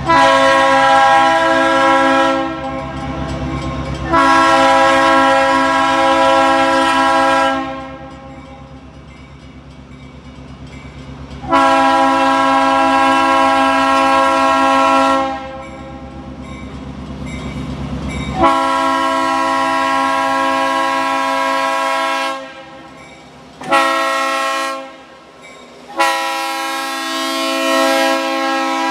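Freight locomotive's air horn sounding a chord in a series of blasts during a horn show: five long blasts and a short one near the end, the last still sounding at the close. A low rumble from the train lies under the first two-thirds and then falls away.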